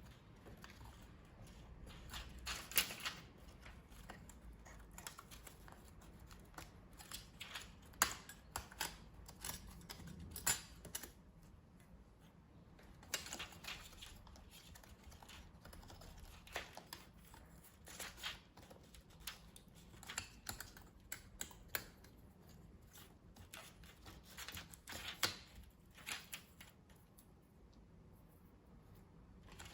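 Irregular light clicks and taps of hands and small tools handling an opened laptop's parts, scattered throughout with a few sharper knocks.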